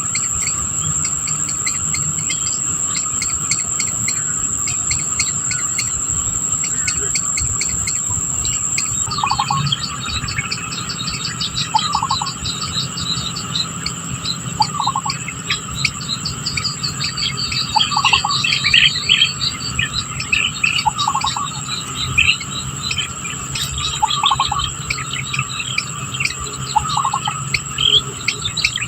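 Insects trilling steadily, with scattered bird chirps. From about ten seconds in, a short, lower call repeats about every three seconds.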